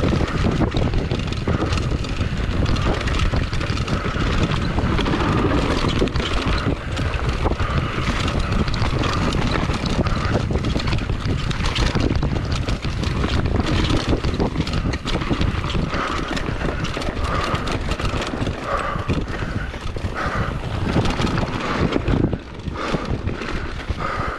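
Mountain bike rolling fast down a dirt singletrack: wind rushing over the camera microphone, with tyre noise and constant clattering of the bike over bumps and roots.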